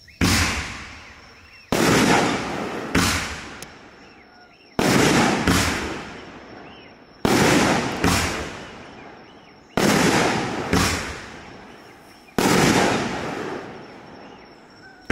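A multi-shot consumer firework cake firing shot after shot, about nine sharp bangs one every second or two. Each bang trails off over a second or two as its burst fades.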